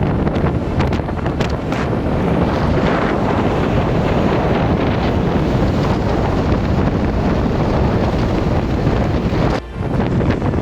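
Storm wind buffeting the microphone, loud and steady, with breaking surf beneath it; the noise dips for a moment near the end.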